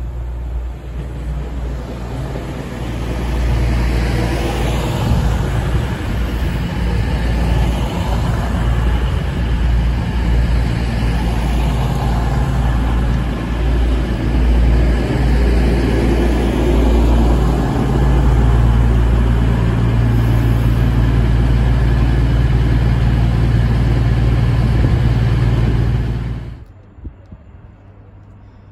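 EMR Class 222 Meridian diesel multiple unit passing at speed: its underfloor diesel engines drone steadily beneath the rumble and rush of wheels on rail, building over the first few seconds. The sound cuts off suddenly near the end.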